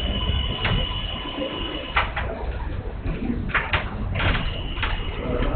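Chalkboard being wiped with a duster: a handful of short scrubbing strokes across the board.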